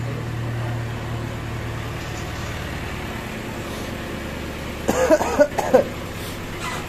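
Street traffic noise with a steady low vehicle hum. About five seconds in comes a short burst of loud wavering tones.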